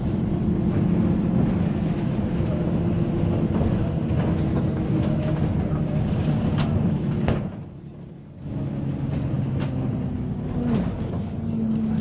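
Bus engine running while driving, heard from inside, with a steady low hum and scattered rattles. The sound drops away for about a second around the middle, then the engine note picks up again and holds steady.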